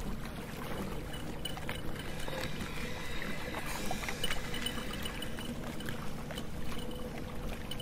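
Sea water: a steady watery hiss with scattered faint clicks and crackles.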